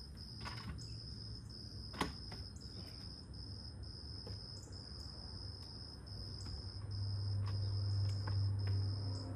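An insect's high, steady trill in even pulses, each a little under a second long, over a low steady hum that grows louder about seven seconds in. A sharp knock about two seconds in and a few fainter clicks.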